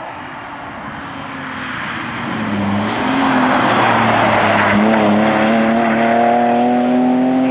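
BMW E36 3 Series coupé rally car coming through a bend, its engine growing louder with a hiss of tyre noise as it corners. It then accelerates away, the engine note rising steadily in pitch.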